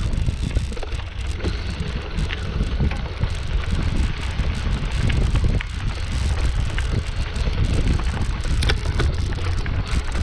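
Low rumbling buffeting on the microphone, with scattered light clicks and rattles.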